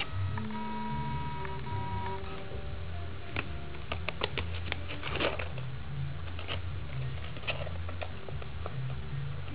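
A kitten scrabbling inside a kraft-paper shopping bag: a run of sharp paper crackles and claw scratches through the middle. Background music with held notes plays under it, most plainly near the start.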